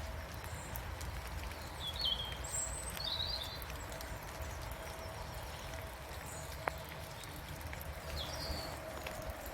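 Rain dripping in woodland, scattered drops tapping sharply, over a steady low rumble. A few short, high bird chirps come about two, three, six and eight seconds in.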